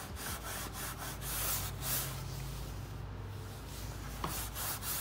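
Cloth rag rubbing a furniture butter into the bare wooden bottom of a drawer, in quick back-and-forth strokes, about three or four a second.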